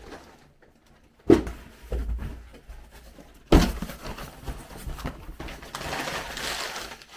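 Cardboard Lego set boxes being handled: a thump about a second in, a second thump a couple of seconds later, then a rustling scrape near the end.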